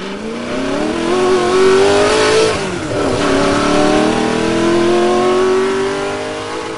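Vehicle engine revving up under acceleration. Its pitch climbs steadily, drops sharply about three seconds in, then climbs again before fading out at the end.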